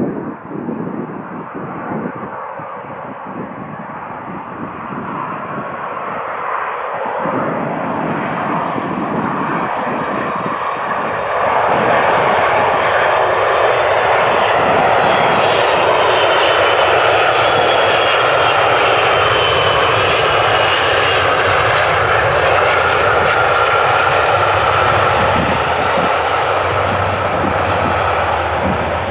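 Jet engines of a Boeing 767-300 airliner growing louder, then running loud and steady from about 11 seconds in, with a high whine that slowly falls in pitch. Wind buffets the microphone underneath.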